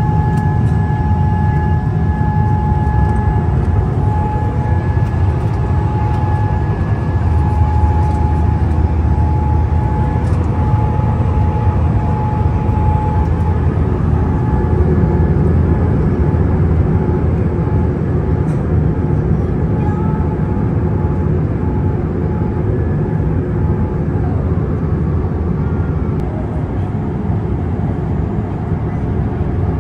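Steady in-flight cabin noise of a Boeing 787 airliner: a deep rumble of engines and airflow. A faint high whine rides over it for the first half, then breaks up and fades out.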